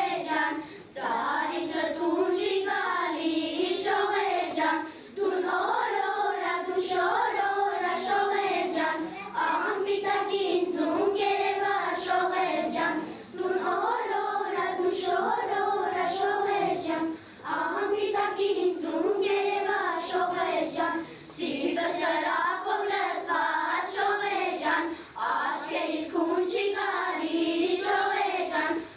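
A children's choir singing a song together, the melody carried in long phrases with brief breaths between them.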